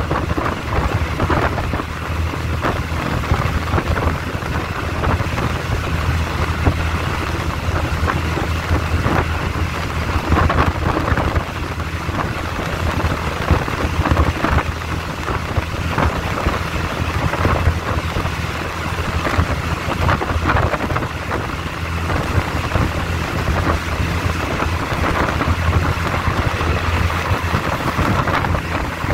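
Passenger train running along the line, heard from an open carriage window: continuous rumble and clatter of wheels on the rails, with wind buffeting the microphone.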